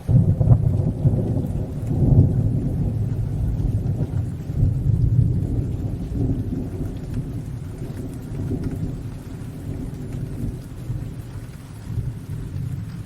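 Thunder rolling over steady rain, a deep rumble that swells at the start, peaks again about two seconds in and then slowly dies away.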